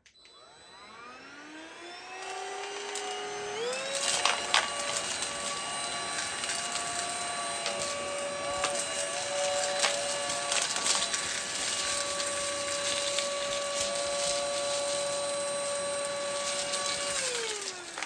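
Prettycare W200 cordless stick vacuum motor spinning up with a rising whine, jumping up in pitch about three and a half seconds in, then running with a steady high whine before winding down with a falling whine near the end. Sharp clicks and rattles of debris hitting the floor head and wand come about four seconds in and again around nine to eleven seconds. The vacuum is struggling with the heavier rocks on the rug and can't pick them up.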